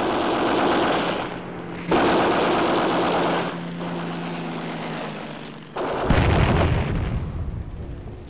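Two loud spells of rapid machine-gun fire, then a deep explosion boom about six seconds in that dies away.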